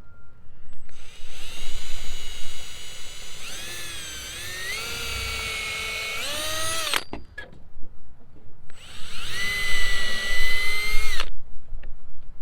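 Power drill boring screw holes for a barrel bolt in a shed door. One run of about six seconds, whose whine sags in pitch as the bit bites and then climbs again, is followed after a short pause by a second run of about two and a half seconds.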